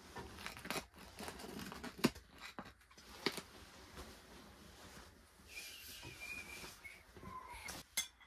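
Tableware at a meal: sharp clinks of cutlery on plates amid rustling, with a brief thin high squeak about five and a half seconds in.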